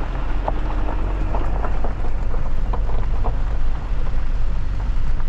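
Camper van rolling slowly over a gravel road, heard from inside the cab: a steady low engine and road rumble with scattered crackle and pops of gravel under the tyres.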